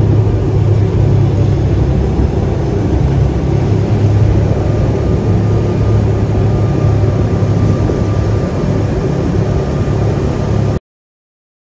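Wengernalp rack-railway train running, heard from inside a carriage with open windows: a steady low rumble and running noise that cuts off suddenly near the end.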